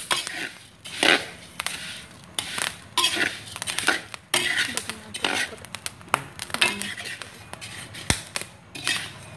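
Metal spatula scraping and stirring raw young rice grains around a metal wok as they toast: irregular scrapes and rustles of the grains, with scattered sharp clicks and one louder knock about eight seconds in.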